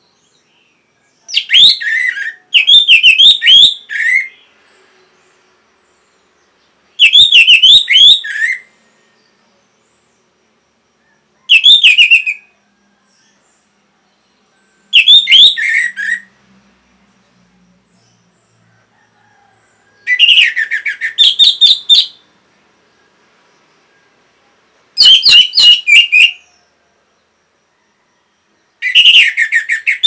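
Orange-headed thrush (anis merah) singing: seven short phrases of rapid, high notes, each a second or two long, repeated every four to five seconds with silence between.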